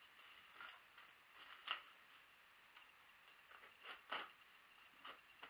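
Faint, scattered rustles and scrapes of brown wrapping paper and a taped cardboard box being cut and pulled open by hand. The sharpest sounds come a little under two seconds in and at about four seconds.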